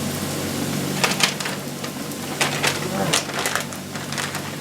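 Kitchen clatter: several sharp clicks and knocks of utensils and dishes being handled, over a steady low hum.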